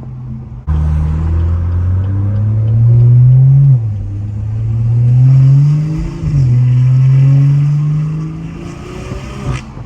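Tuned BMW B58 turbocharged straight-six with a catless downpipe, pulling hard under acceleration: the engine note climbs, drops sharply at two upshifts and climbs again, then falls away as the throttle eases, with a sharp pop near the end.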